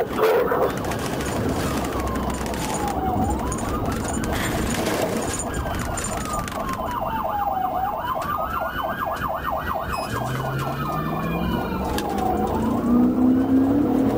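Police car siren wailing in slow rising and falling sweeps, heard from inside the pursuing patrol car over engine and road noise, with a fast pulsing tone added for a few seconds in the middle. Toward the end the engine's pitch climbs as the car speeds up.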